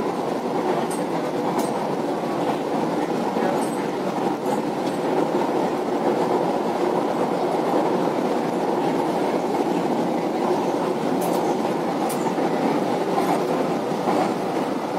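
Kochi Metro train running at speed, heard from inside the carriage: a steady rumble of the wheels and running gear, with a few faint light clicks.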